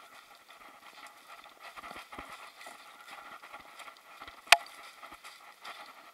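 Hurried footsteps crunching and rustling through dry leaf litter and brushing past twigs, with one sharp snap or knock about four and a half seconds in that stands out as the loudest sound.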